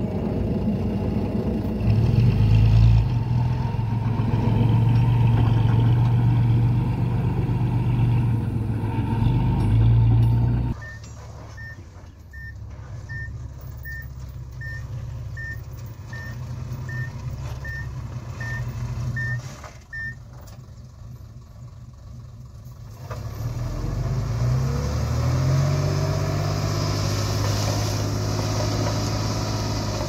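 Diesel dump truck engine running loudly while tipping its load. Then, after a drop in level about 11 s in, a truck's reversing alarm beeps about twice a second for about nine seconds as it backs up. From about 23 s in, engine revs rise as the hydraulic hoist raises the bed, and soil slides out near the end.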